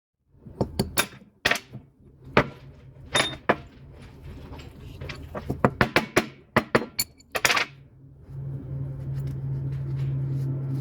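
Sharp metal clinks and knocks of tools and parts being handled in a wheel-bearing repair, a dozen or so separate strikes, followed from about eight seconds in by a steady low hum.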